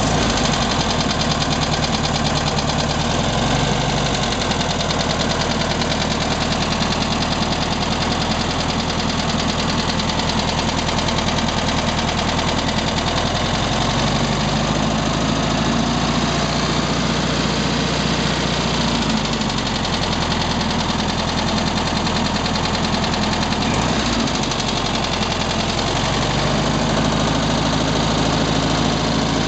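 1967 VW Beetle's air-cooled flat-four engine running steadily with a rapid knocking noise. The knock is the fault the owner is asking about.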